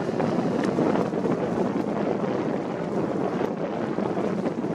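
Wind blowing across the microphone, a steady noise without any distinct engine tone.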